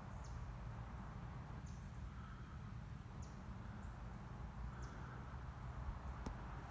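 A bird giving a short, sharp, high call that drops in pitch, repeated about every second and a half, over a steady low rumble.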